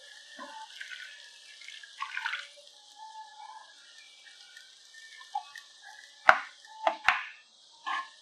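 Water added to fried onion-tomato masala in a pan and stirred in with a wooden spatula, making wet sloshing and stirring sounds. A few sharp knocks come near the end, the loudest about six to seven seconds in.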